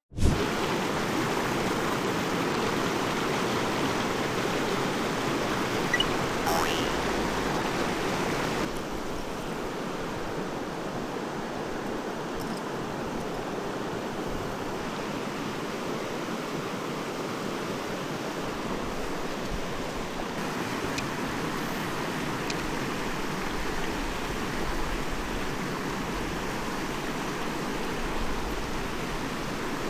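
Flowing water of a clear mountain stream, a steady rushing; it drops a little in level and changes character about a third of the way through.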